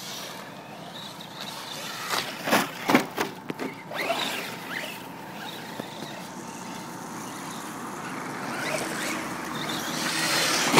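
Radio-controlled off-road trucks driving on dirt, with a cluster of sharp knocks about two to three seconds in. The noise builds toward the end and closes on a sharp thud as a truck comes down from a jump.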